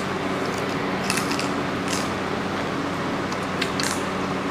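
Eating sounds: a handful of short, sharp clicks and smacks of chewing and hand-eating, the first about a second in, over a steady mechanical hum.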